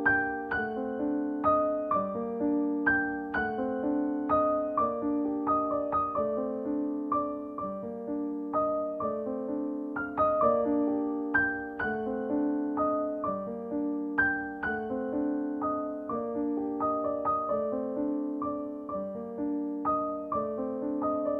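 Background music: a gentle keyboard melody of single struck notes, each fading away, played one after another in a slow repeating pattern.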